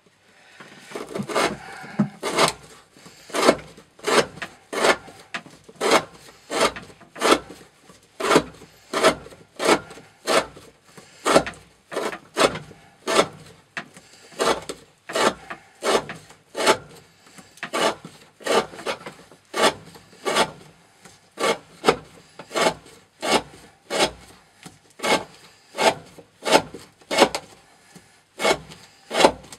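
An N690 steel knife blade with a 40° V edge slicing through rope again and again in a cutting-wear test. Each cut is a short rasping stroke, about three every two seconds in an even rhythm.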